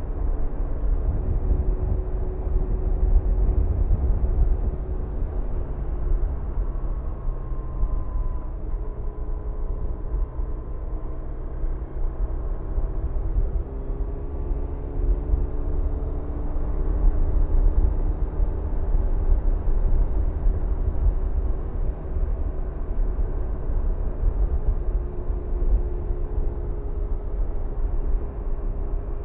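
BMW R1100RT's boxer twin engine running at a steady cruise, with heavy wind rush over the microphone. The engine note drifts up and down a little as the speed changes.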